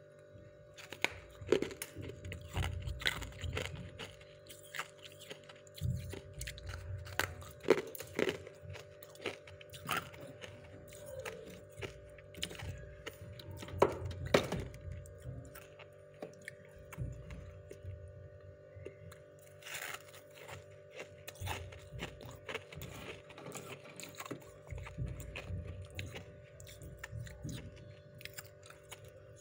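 Thick freezer frost crunching as it is bitten and chewed close to the microphone, a run of irregular sharp crunches.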